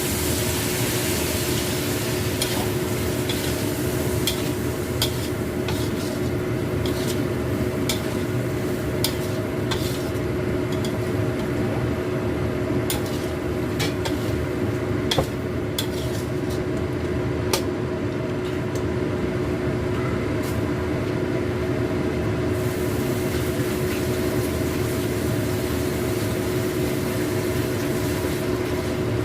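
Stir-fry of salted squid, tempeh and green chilies sizzling in a pan in soy sauce with a little water, stirred with a spatula that clicks against the pan now and then, mostly in the first half. A steady hum runs underneath.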